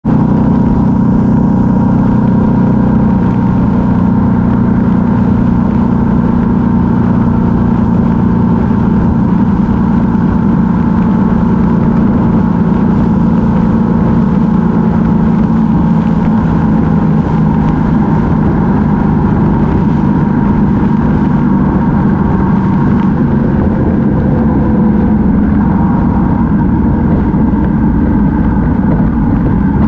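Yamaha MT-07's parallel-twin engine running steadily at cruising speed, heard from a camera mounted on the motorcycle, with road and air noise.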